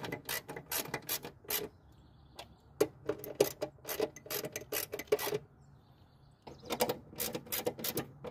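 Socket ratchet clicking in three runs of about three or four clicks a second, with short pauses between, as self-tapping screws are driven into the sheet-metal fender.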